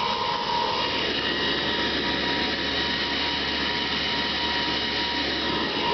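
High-RPM server cooling fans running steadily, a constant whir with a high whine over it. They blow air through a 24-volt Power Wheels ride-on to cool its motors, which had started to smell burnt after the voltage was raised.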